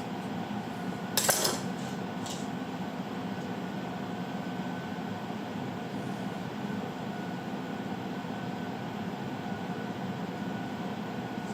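A short cluster of light metallic clinks about a second in, then a single lighter click, from the spray head and its threaded hose fitting being handled at the sink. A steady background hum runs underneath.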